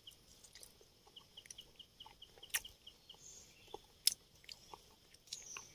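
A person chewing food, with soft crunches and a few sharp clicks, over a steady rapid high ticking of about five a second.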